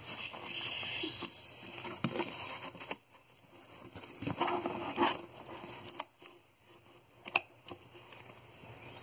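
Scissors cutting paper, with paper rustling and small clicks as the pieces are handled; the busiest rustle comes in the first second and again around the middle.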